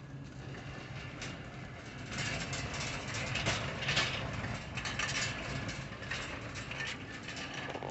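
Wire shopping cart rolling along a store floor, its wheels and metal basket rattling and clattering, louder from about two seconds in, over a steady low hum.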